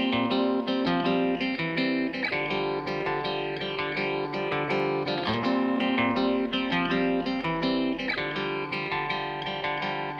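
Background music: a plucked guitar tune with steady, regularly picked notes.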